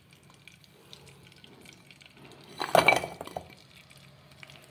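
Jaggery tipped into a pan of melted ghee: a short clatter of hard lumps with a ringing clink against the pan about three seconds in, after a quiet start.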